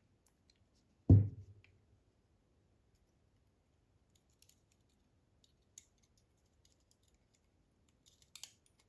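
A single dull knock about a second in, then scattered faint clicks and light scrapes of small metal parts and tools, from pins and springs being taken out of a dimple-lock cylinder.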